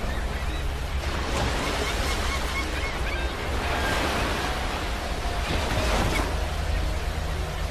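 Sea waves breaking and washing up a beach: a steady rushing surf over a deep rumble, swelling a little now and then. A few faint short chirps sit high above the surf.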